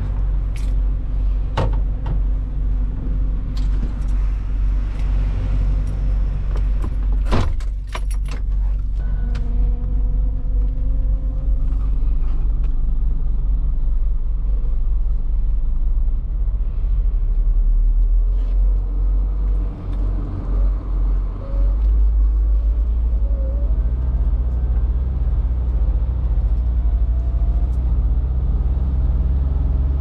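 Semi-truck's diesel engine running, heard from inside the cab as the truck moves slowly, with the cab rattling; a cluster of sharp clicks and rattles about seven to eight seconds in, and the engine note growing heavier after about twenty seconds.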